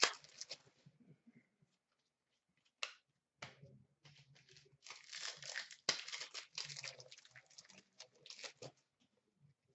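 Panini Contenders hockey card pack wrapper being torn open and crinkled by hand: quiet at first, a short snap about three seconds in, then a few seconds of crackly rustling.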